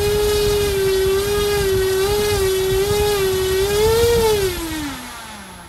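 Brushless electric RC motor spinning a propeller under throttle: a steady whine held with small wavers, rising a little about four seconds in, then winding down in pitch over the last second or so as the throttle is backed off.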